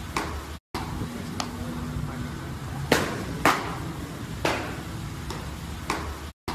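Baseballs popping into catchers' mitts during bullpen pitching: a series of sharp leather pops, several faint and two loud ones about half a second apart about three seconds in, over a steady low background hum.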